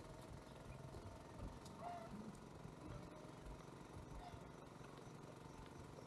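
Quiet outdoor rural ambience: a faint low rumble, with a couple of faint bird chirps about two seconds in and again just after four seconds.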